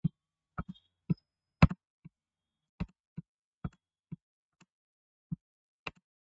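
Irregular clicks of a computer mouse and keyboard, about a dozen sharp clicks spaced unevenly, the loudest about one and a half seconds in.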